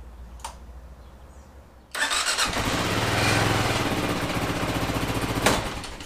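Kawasaki KLR650 single-cylinder engine starting about two seconds in and running briefly, then a sharp clunk and the engine cutting out near the end. It dies because the kickstand safety switch plug is unplugged, so the CDI sees no ground path.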